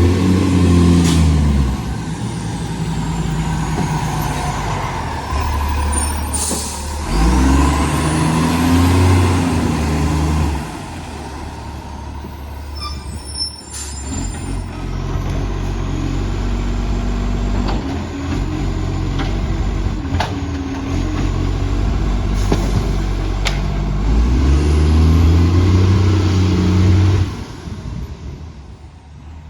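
Garbage truck diesel engine with a massive exhaust leak, revving up hard three times between stretches of lower running, with a few sharp knocks and hisses in between.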